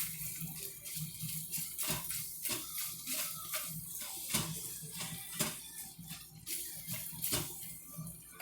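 Kitchen clatter: a metal utensil knocking and scraping many times in quick succession, over a steady hiss.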